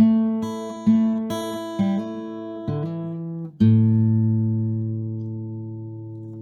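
Acoustic guitar music: a few strummed chords, then a last chord about three and a half seconds in that rings out and slowly fades.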